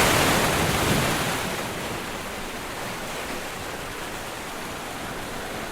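Waterfall's rushing water, a steady rush that is a little louder at first and then settles.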